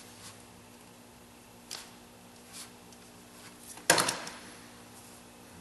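Handling noises from the oil sampling pump being wiped out with a rag: a few faint rustles and small clicks, then one sharp clack about four seconds in, over a faint steady hum.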